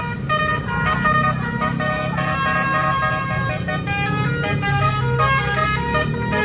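Bus telolet horn (Basuri type) playing a quick multi-note tune, its pitch jumping several times a second, over the low rumble of the bus engine.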